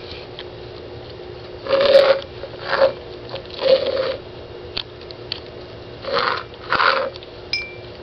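Five short rasping bursts, each about half a second, from a glass jar with a live periodical cicada inside as a cat paws and noses at it.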